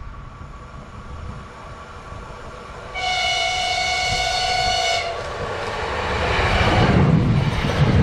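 A Koleje Wielkopolskie EN76 (PESA Elf) electric multiple unit sounds its horn once, a steady chord held for about two seconds as it approaches. The rumble and rush of the train then build up and are loudest near the end as it passes close by.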